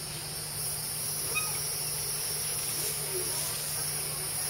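Steady high-pitched chorus of insects over a low steady hum, with faint distant voices.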